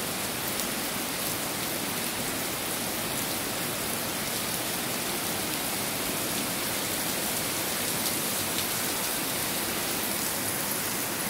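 Heavy rain falling steadily: a dense, even hiss with scattered drops ticking close by.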